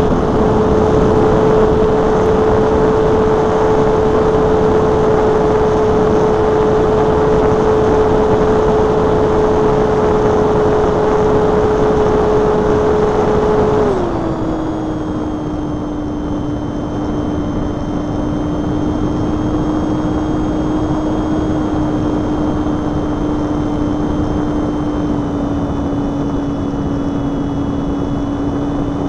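Electric motor and propeller of a Multiplex Blizzard RC motor glider running at a steady whine over rushing air. About halfway through the pitch steps down to a lower steady whine, and the motor stops at the very end.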